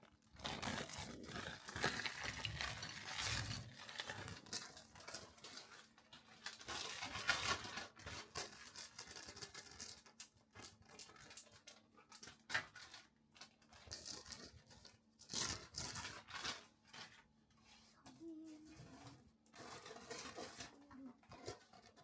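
Crinkling and rustling, as of packaging being handled, with scattered light clicks and knocks, busiest in the first half.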